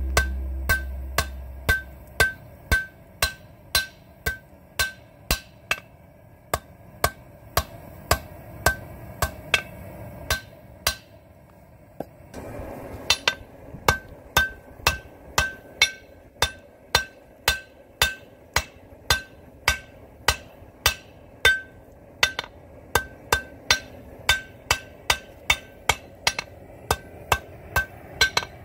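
Hand hammer forging glowing-hot rebar on a chain-wrapped steel anvil: steady blows about two a second, each with a short metallic ring, with a pause of a couple of seconds near the middle.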